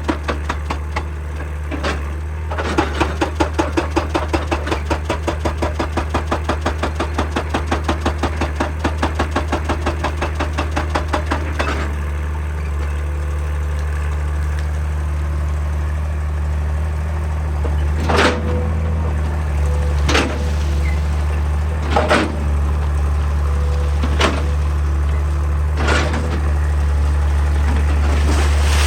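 Excavator's hydraulic rock breaker hammering in a fast, even run of blows, about three to four a second, over the steady drone of the diesel engine; the blows stop about eleven seconds in. The engine then runs on, with five sharp metallic knocks about two seconds apart, each leaving a brief ring.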